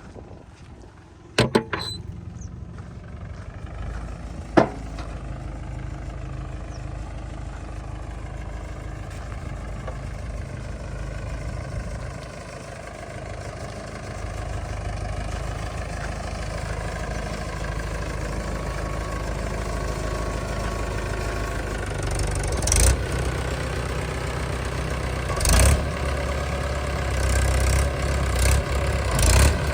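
Heavy diesel machine engine running steadily, growing gradually louder, with a couple of sharp knocks in the first few seconds and several short loud bursts in the last third.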